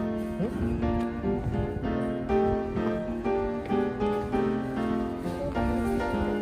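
Background music with piano, a run of held notes changing about every half second.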